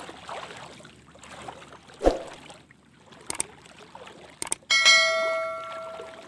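River water splashing around a man wading waist-deep, with a thump about two seconds in. A few mouse clicks follow, then a bright bell-like chime rings out and slowly fades near the end: the sound effects of a subscribe-button animation.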